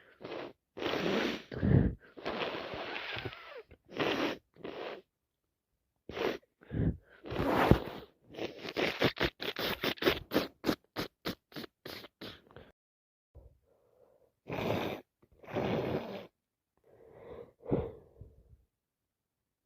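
A woman with a heavy head cold sneezing and blowing her nose: a string of short noisy bursts with pauses between, including a rapid run of short bursts about nine to twelve seconds in.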